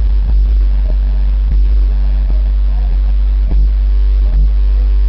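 Bass-heavy music played loud through a Rockford Fosgate T1 subwoofer in a slot-ported enclosure, the deep bass steady and dominant with beat hits on top.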